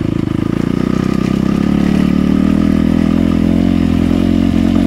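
Dirt bike engine running under way, its note rising a little and growing louder about two seconds in, then holding steady.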